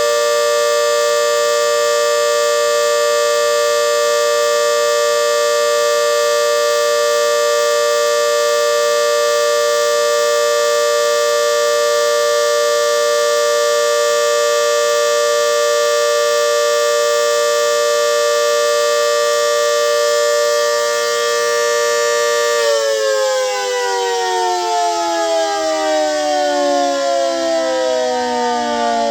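GS CS-10V15QT civil defense siren sounding a steady alert tone, a siren with bad bearings. About 22 seconds in, the tone stops holding and the siren winds down, its pitch falling steadily.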